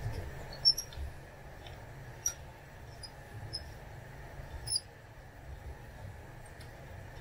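Hex key and screws being worked loose from a metal frame: a few scattered small metallic clicks and high squeaky ticks over a steady low hum.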